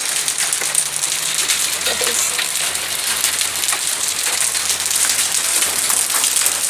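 Hail falling, a dense steady patter of countless small ticks over a hiss.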